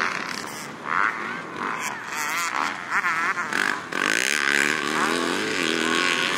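Yamaha YZ250F four-stroke single-cylinder motocross bike engine revving up and down, its pitch rising and falling over and over as the throttle is worked. It gets louder from about four seconds in.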